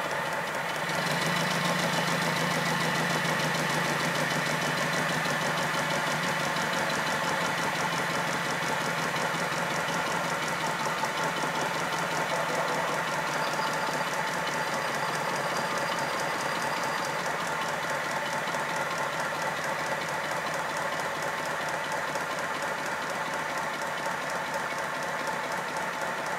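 A 5-inch gauge model of the Lion locomotive, with slip-eccentric valve gear, running on compressed air on a rolling road: rapid, even exhaust beats with mechanical clatter, starting about a second in once the regulator is opened. The engine has a slack crank axle, a loose crank pin and a worn coupling rod.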